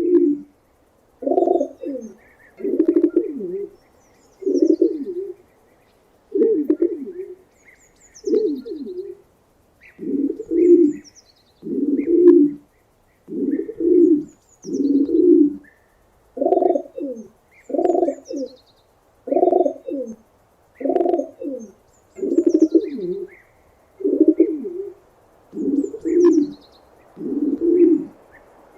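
Pigeon cooing: a low coo phrase repeated steadily, about every second and a half. Faint high chirps come and go above it.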